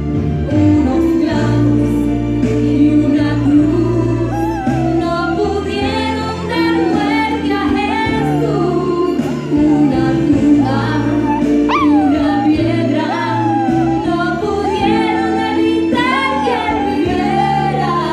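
Shih Tzu puppy howling along to a Spanish-language Christian song playing with a singer and band; the howl wavers and slides in pitch over the music, with one sharp rising yelp about twelve seconds in.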